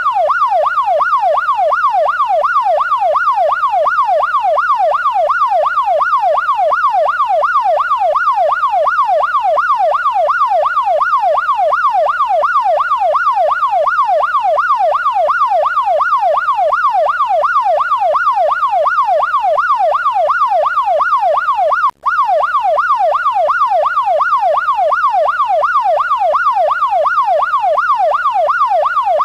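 Police car electronic siren in its fast yelp pattern, the pitch sweeping rapidly up and down about twice a second without pause. It breaks off for a split second about three-quarters of the way through.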